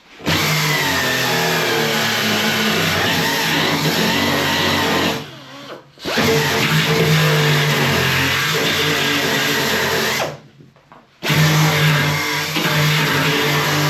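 Handheld power tool running steadily against a car door's steel panel, stripping paint and rust back to bare metal; it stops briefly twice.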